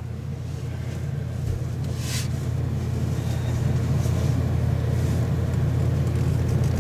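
Steady low hum of a running motor, slowly growing louder, with a brief rustle about two seconds in.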